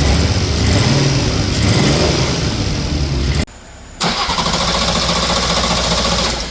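BMW B58 turbocharged inline-six running with a misfire, which the owners hope is only spark plugs fouled by overfuelling; its pitch wavers unevenly in the first few seconds. About halfway through, the sound drops out for half a second and then resumes.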